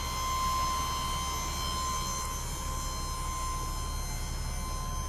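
Electric hydraulic pump motor of a 3,000 lb truck lift gate running with a steady high whine over a low hum.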